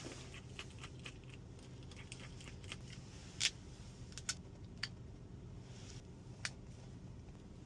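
Scattered light clicks and taps of small tools and parts being handled during a phone repair, with one sharper click about three and a half seconds in, over a steady low hum.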